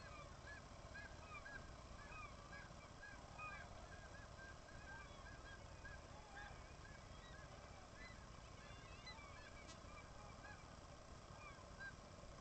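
Faint chorus of a seabird colony: many birds calling at once, a dense run of short, repeated, arched calls that overlap one another.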